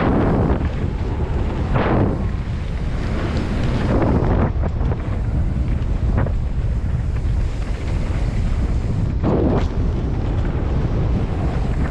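Heavy wind buffeting the microphone of a camera riding on a mountain bike descending a dirt trail, with several short surges of tyre and trail noise.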